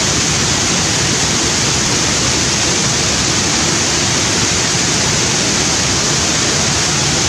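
Steady rushing of a shallow river running fast over rocks.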